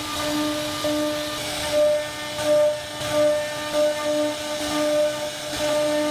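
A CNC router spindle runs with a steady high whine while its carving bit cuts a relief pattern into a wooden panel. The sound swells and fades in a regular rhythm, roughly three times every two seconds, as the bit works through the wood.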